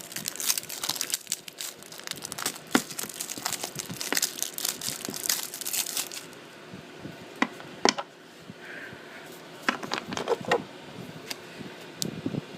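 Packaging of a trading-card deck crinkling and tearing as it is opened by hand: dense crackling for about the first half, then scattered clicks and rustles.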